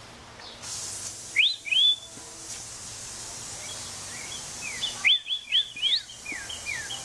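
A wild songbird chirping. Two quick rising whistled notes come about a second and a half in, then a run of short falling whistles starts about five seconds in.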